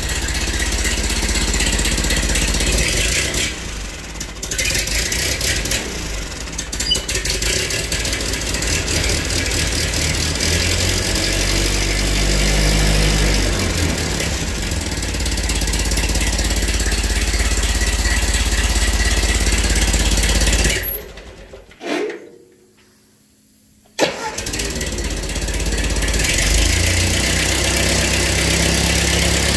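1952 Ford 8N tractor's four-cylinder side-valve engine running, its speed shifting now and then, with an exhaust leak at a clamp that the owner calls really bad. The engine sound falls away for about three seconds some two-thirds of the way in, then is running again.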